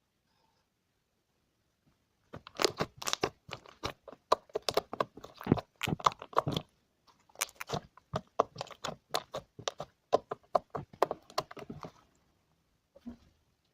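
Slime being squeezed and pressed by hand, making rapid crackling and popping clicks. The crackling starts about two seconds in, runs for about ten seconds and returns briefly near the end.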